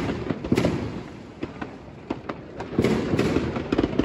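Fireworks going off: sharp bangs and crackles, with a loud bang about half a second in, a brief lull, then a dense run of crackling bangs in the last second or so.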